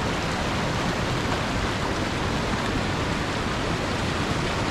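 River water rushing steadily: an even, unbroken hiss of flowing water.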